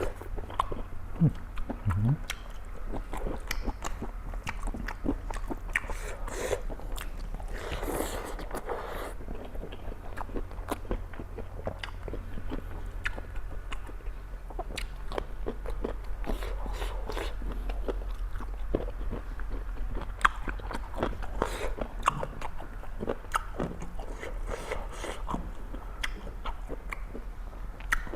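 A person biting and chewing crunchy food, a dense run of small crisp crunches and clicks, over a steady low hum.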